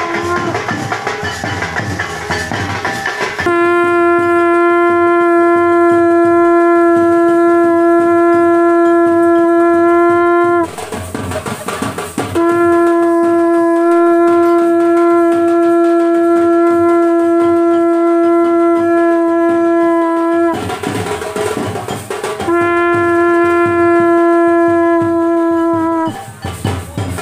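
Conch shell (shankh) blown in three long held single notes, each dipping slightly in pitch as it ends. The first two last about seven to eight seconds and the last about half as long, with short rougher stretches of background sound between blows.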